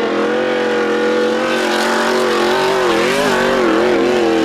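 Off-road racing buggy's engine running hard at high, steady revs. About two and a half seconds in, the revs waver up and down.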